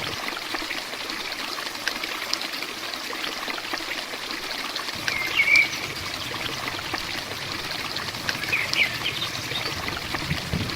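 Heavy rain falling steadily, a dense hiss with many individual drops ticking. A bird chirps briefly twice, about halfway through and again near the end.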